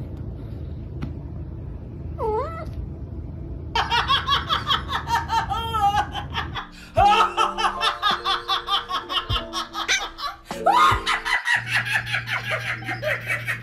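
A woman laughing hard in quick repeated bursts, starting about four seconds in. Before that there is a low hum and one short cat meow, rising and falling.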